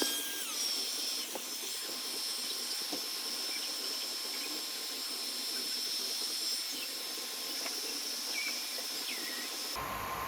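Steady rushing hiss of a small electric air tool running, with a thin high whine over it. The sound changes abruptly to a different steady noise near the end.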